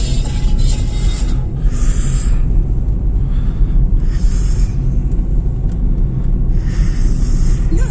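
Steady low rumble of a car's engine and tyres on the road, heard from inside the moving car's cabin, with three brief swells of hiss.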